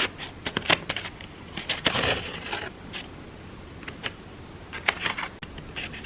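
Crepe paper being stretched and worked by hand, crinkling in a run of short crackles, with a longer rustle about two seconds in.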